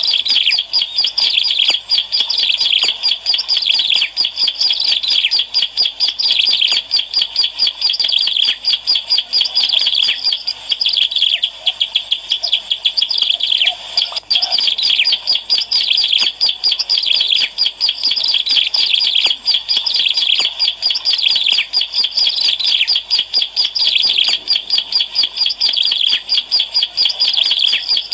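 Ciblek alang-alang, a prinia, singing nonstop. It is a loud, dense stream of fast, high chirping notes with no real pauses, the kind of lure song played to attract wild birds.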